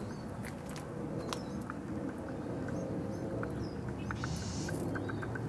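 Outdoor ambience of small birds chirping in short, scattered calls over a steady low background rumble, with a brief rustle about four seconds in.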